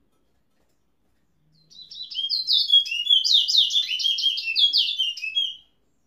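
A caged towa-towa (chestnut-bellied seed finch) singing one rapid phrase of quick slurred, mostly falling notes that starts about one and a half seconds in and runs about four seconds.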